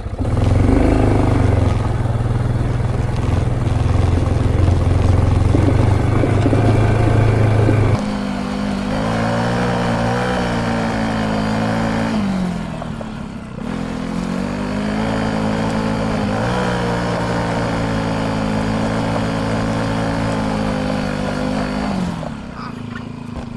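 Polaris Ranger utility vehicle's engine running while driving. It is loudest and rumbling for the first eight seconds, then settles into a steadier engine note. That note drops in pitch and dips about twelve seconds in, picks up again, and falls away near the end as the vehicle slows.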